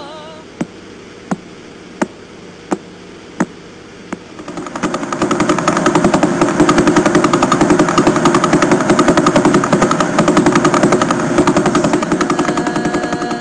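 Pulsar radio signals played as sound. First a slow pulsar gives a sharp click about every three-quarters of a second, five in all. Then, from about four and a half seconds in, a second, much faster neutron star's pulses run together into a loud rapid buzz.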